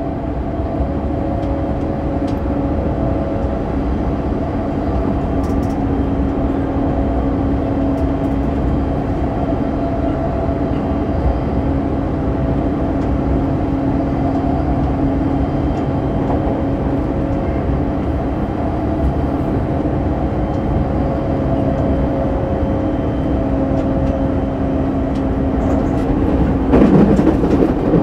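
Running sound inside a JR E231 series electric train's motor car at about 88 km/h: a steady rumble of wheels on rail with a steady hum from the traction drive. The rumble grows louder and rougher near the end.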